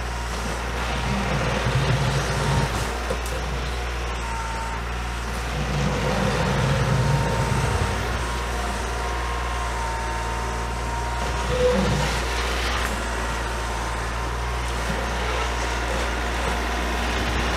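Diesel engine of a 35-horsepower Kioti compact tractor running steadily, rising twice under load, about two seconds in and again around six to eight seconds in, as the loaded tractor struggles in the snow.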